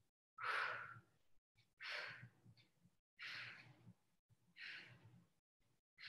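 A woman breathing out hard and rhythmically while holding an abdominal crunch with raised legs: about four forceful exhales, one every second and a half or so, each fading quickly, and a fifth starting near the end.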